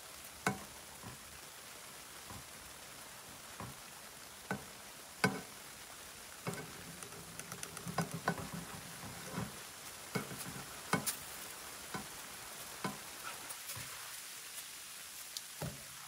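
Egg-and-sausage batter patties frying in a pan with a faint steady sizzle. Frequent sharp clicks and taps come over it, with a quick run of them about eight seconds in.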